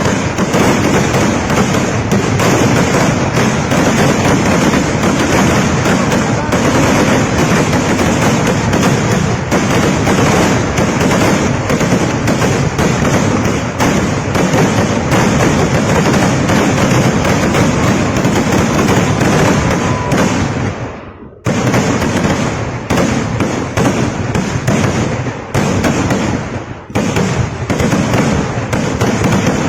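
Kerala temple-festival fireworks (vedikkettu): a dense, nearly unbroken barrage of rapid firecracker bangs merging into a continuous crackle. About two-thirds of the way through it breaks off briefly, then resumes in quick clusters of bangs.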